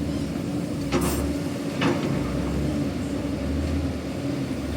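Excavator engine running steadily with a low hum, and two short sharp noises about one and two seconds in.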